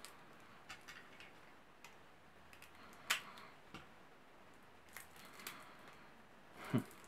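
Faint rustling and clicking of fingers picking at the wrapping of a tightly packed deck of game cards, with a sharper click about three seconds in and a soft knock near the end.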